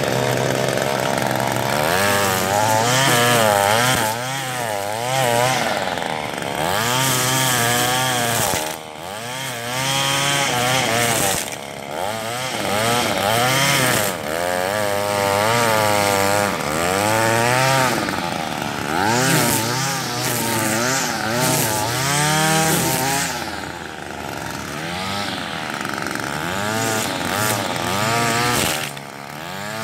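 Two-stroke gas string trimmer running as it cuts tall grass. Its engine pitch rises and falls over and over as it is revved and loaded, with a few brief drops in throttle.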